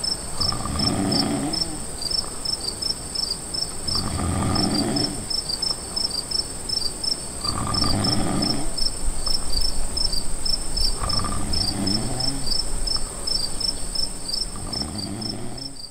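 A man snoring: five long snores about three and a half seconds apart, over the steady high chirping of crickets.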